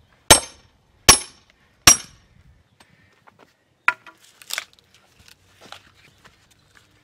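Three ringing metal-on-metal blows, about 0.8 s apart, as a steel splitting wedge is driven into a knotty log. A sharp crack and splintering follow about four seconds in as the log is pulled apart by hand, then light knocks of split wood being handled.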